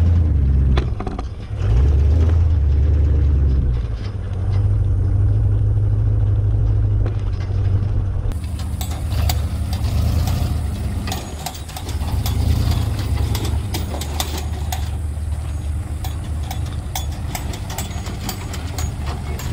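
Ford F-250 Highboy 4x4 truck's engine running low and steady while crawling over a dirt hump, with throttle surges near the start and again about two to four seconds in. From about eight seconds in, many small clicks and crackles sound over the engine.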